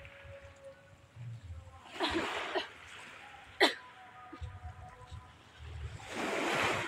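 Small waves washing onto a pebble shore twice, about two seconds in and again near the end, with a single sharp click between them that is the loudest sound.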